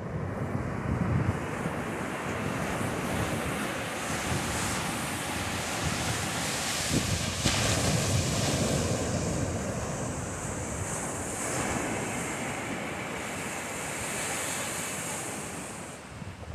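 Ocean surf breaking and washing up a sandy beach, with wind rumbling on the microphone. The wash swells loudest about halfway through.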